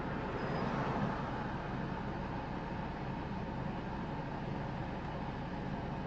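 Steady outdoor background rumble with no distinct events, swelling slightly about a second in.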